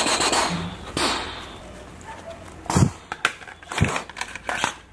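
Plastic toy pistols handled and knocked together in gloved hands. A brief rubbing rustle comes first, then a quick series of sharp plastic clicks and clacks over the last two seconds.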